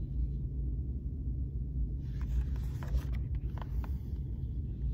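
A picture book's paper page being turned, a rustle with a few soft clicks from about two seconds in, over a steady low background rumble.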